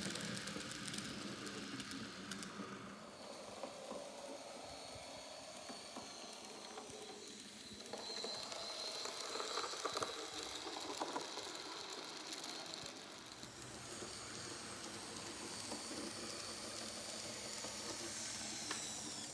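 Z-gauge model trains running on a layout: a thin steady motor whine over the hiss and rattle of tiny wheels on the track. It grows louder for a few seconds near the middle as a train crosses a steel truss bridge.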